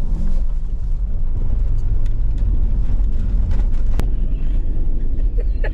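Mercedes-AMG G63 with its twin-turbo V8 driving slowly through a deep puddle: a steady heavy low engine and tyre rumble. There is one sharp click about four seconds in.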